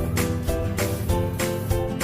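Background music with a steady beat and held chord notes.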